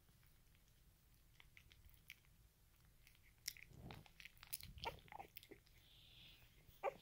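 Poodle puppy suckling vigorously at its mother's teat: faint, quick wet sucking and smacking clicks, sparse at first and busier through the second half.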